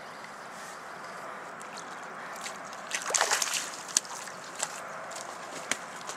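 River water sloshing and splashing around a person swimming alongside a floating log, with a louder splash about three seconds in.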